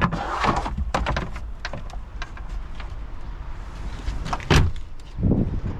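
A scatter of clicks and knocks, then one loud sharp knock about four and a half seconds in and a duller thud just after, over a steady low rumble.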